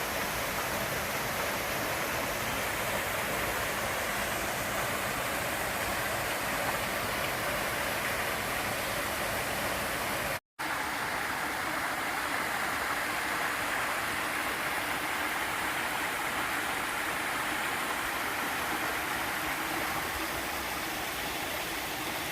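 Small waterfall rushing steadily, a continuous hiss of falling water. The sound cuts out completely for a split second about halfway through.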